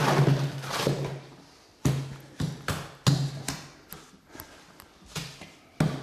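Hand-mixing wet masonry mortar with a long-handled hoe in a wheelbarrow: repeated scraping strokes of the hoe blade through the sand-and-cement mix and against the pan, roughly one or two a second, with a brief lull past the middle.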